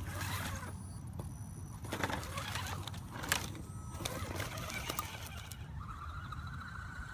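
Axial SCX10 radio-controlled scale crawler driving over dry fallen leaves, the leaves crackling and crunching under its tyres in irregular bursts over a low rumble.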